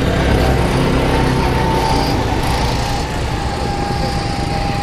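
Small petrol go-kart engine running steadily at speed, heard from aboard a moving kart.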